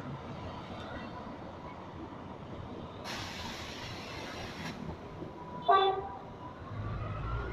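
Train running with a steady rumble, and a short, sharp toot of its horn about six seconds in. Earlier there is a hiss lasting under two seconds.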